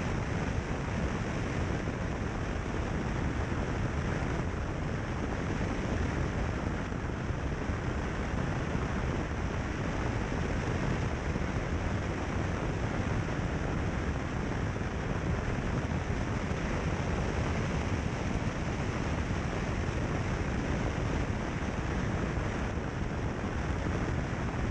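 Steady wind rushing over the microphone of a camera mounted on a car's bonnet, with the rumble of tyres on a gravel road; no clear engine note stands out.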